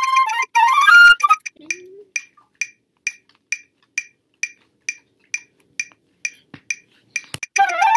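Flute playing a short rising phrase that breaks off after about a second, leaving a metronome clicking steadily, a little over two clicks a second. Near the end the flute starts the same phrase again.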